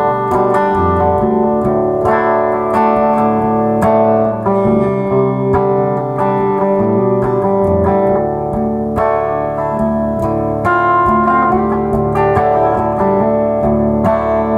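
A 2013 Gretsch White Falcon G6136T hollow-body electric guitar with Filtertron pickups, played through a Laney amp with a clean tone: a continuous picked passage of ringing single notes and chords. The controls are set to warm and soften the tone.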